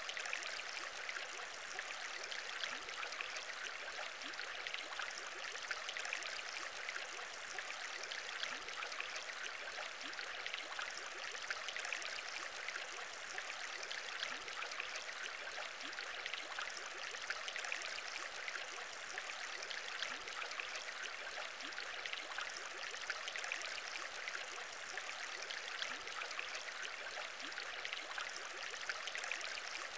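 Aquarium bubbling: a steady, dense stream of small bubbles, mostly high-pitched, with no pauses.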